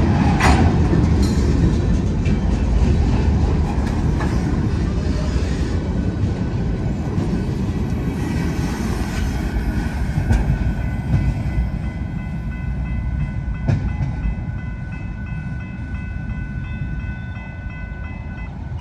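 Wheeling & Lake Erie freight train cars rolling past: a steady low rumble with wheels clacking over rail joints, slowly fading. From about ten seconds in, a thin, steady high wheel squeal joins in.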